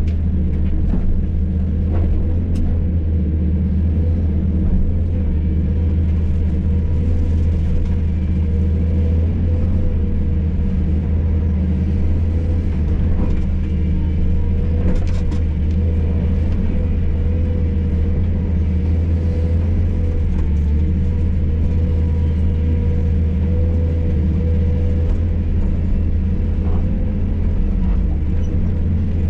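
Hydraulic excavator's diesel engine running steadily under work, heard from inside the cab, with a steady whine above the low engine hum. A few short sharp knocks come through, one near the middle and one near the end.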